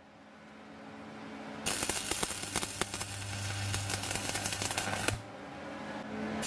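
Stick (manual arc) welding: the electrode's arc crackling and spitting steadily. It is struck about a second and a half in and broken off suddenly about five seconds in, over a low steady hum.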